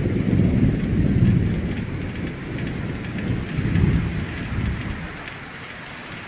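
Thunder rolling in two swells, the first loudest, fading away near the end, over a steady hiss of rain.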